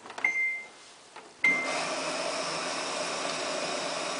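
Two short electronic beeps from the Samsung WF8804RPA washing machine's control panel. About a second and a half in, its water inlet valve opens and water rushes in steadily through the main-wash and softener feed, filling the drum.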